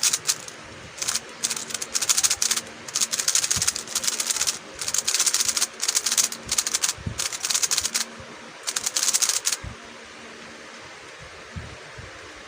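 A Meilong 3C 3x3 speedcube being turned fast in bursts, its plastic layers clicking and clattering as they are forced through corner-cutting and reverse corner-cutting turns. The turning stops a little after nine seconds in.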